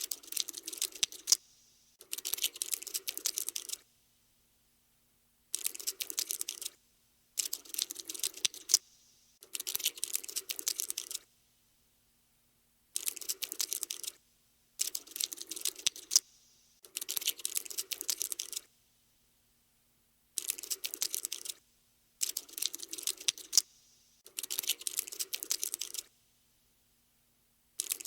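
Cockroach scuttling sound effect: bursts of rapid, dense ticking and scratching, each lasting one to two seconds, about a dozen of them with silent gaps between.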